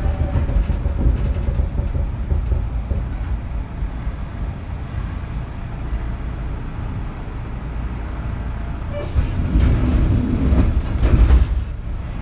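Kintetsu 3200 series electric train heard from inside a motor car while running: a steady low rumble of wheels on rail. About nine seconds in, the noise grows louder and harsher for two to three seconds, then drops back.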